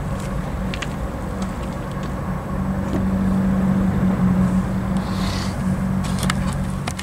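Diesel locomotive engines running in a steady low drone as a lashup of units moves away, swelling a little about halfway through, with a few light clicks on top.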